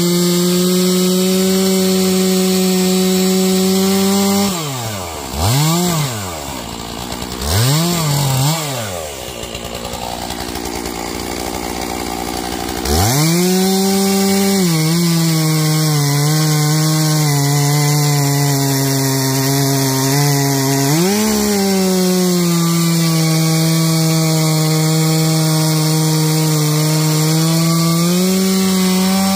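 Stihl MS461 two-stroke chainsaw at full throttle cutting through logs. About four seconds in the throttle is let off and blipped twice, and the saw runs low for a few seconds. Near the middle it goes back to full revs and holds there, the pitch sagging slightly as the chain pulls into the wood.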